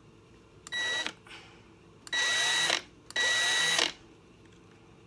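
Ryobi 3-speed cordless hex impact driver run at full throttle with no load, in three short bursts: each a high, steady motor whine that climbs as it spins up, then cuts off.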